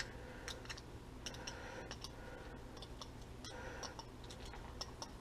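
Faint, irregular metal clicks and light scrapes of a fork working ground fish meat out of a wire potato masher against a bowl, over a low steady hum.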